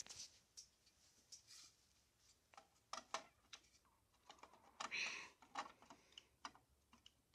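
Faint, scattered small plastic clicks and taps as an HO scale intermodal container is handled and fitted onto a model double-stack well car, with a short scrape about five seconds in.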